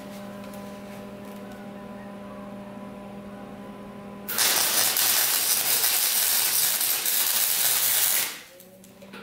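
Wire-feed (MIG) welder arc crackling and hissing steadily for about four seconds, laying a bead across a break in a dirt bike's frame. It starts about four seconds in and cuts off sharply near the end. Before it there is a steady electrical hum.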